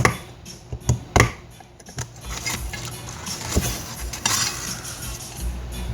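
Light knocks and metallic clinks of tools and speaker parts being handled on a workbench, with a rustle a little past the middle.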